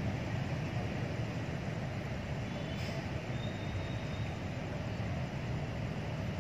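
Steady low rumble of outdoor city background noise, mostly distant road traffic, with no distinct events.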